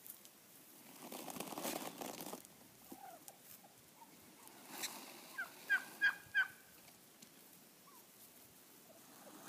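Wild turkey tom gobbling about five seconds in, a quick rattling run of notes, with a few soft short calls before it. A brief rushing noise about a second in.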